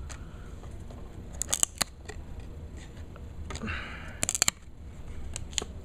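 Old cardboard trading cards being handled and pulled apart where they have stuck together. There are two clusters of sharp clicks and snaps, about a second and a half in and about four seconds in, with a short rustle of cards sliding just before the second.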